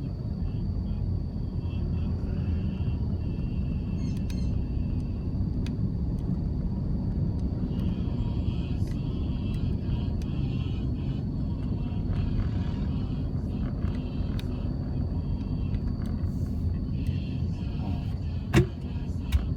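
Steady low rumble of a car being driven on city roads, engine and tyre noise, with one sharp click near the end.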